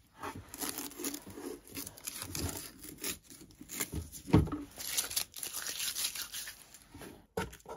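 Masking tape being peeled off the edges of a fibreboard box in irregular rips and rustles, with a single knock a little past the middle as the box is handled.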